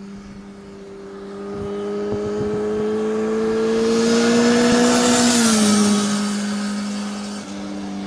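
A motorcycle engine approaching and passing by: a steady engine note that grows louder and drops slightly in pitch about five and a half seconds in as it goes past, then fades a little.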